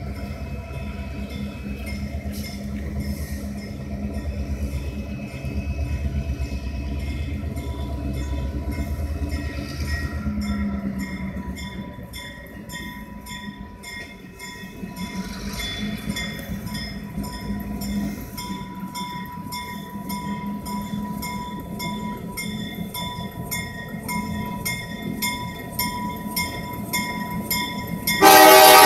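Approaching EMD GP38-series diesel locomotives running with a low engine rumble, with a faint regular ringing about twice a second behind it. Just before the end the locomotive air horn starts, loudly.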